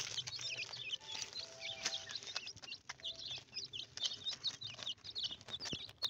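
A flock of grey francolin (teetar) chicks peeping over one another with many short, high-pitched cheeps, mixed with scattered sharp taps as they peck at food on a plastic sheet.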